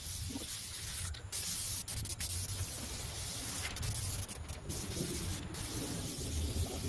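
Aerosol can of web-type spray adhesive hissing as it is sprayed over a headliner backboard, in long passes with a few brief breaks. A low rumble runs underneath.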